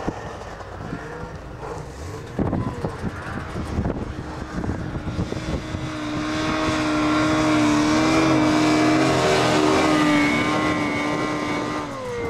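Snowmobile engine revving up and down at first, then running at high revs and growing louder as a sled comes close through deep powder, holding a steady high whine. Near the end its pitch drops as it passes by.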